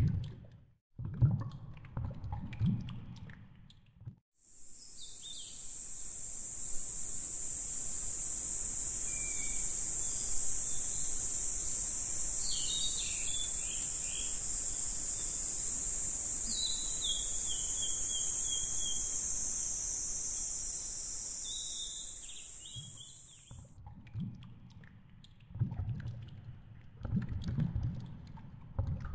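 A steady, loud, high-pitched drone of cicadas swells in and fades out again, with birds chirping over it. Before and after it come low, muffled underwater gurgling and knocks of pool water.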